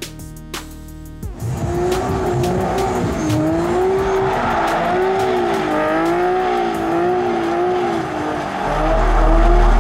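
Music with plucked strings at first, then from about a second and a half in, a Nissan 370Z's tyres squealing with a wavering, up-and-down pitch as the car slides through a cone course. Near the end a loud low rumble comes in.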